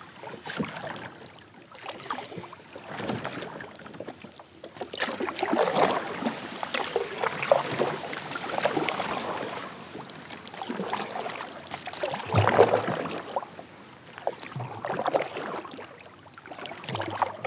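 Kayak paddle strokes: the blades dipping and pulling through the water with splashing, in irregular surges every couple of seconds.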